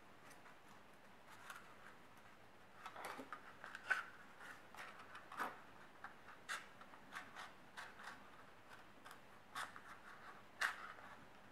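Stiff folded paper crinkling and crackling in the hands as pleated pieces are worked onto a thin wooden skewer: faint, irregular clicks and rustles, busiest about a third of the way in, with a sharper click near the end.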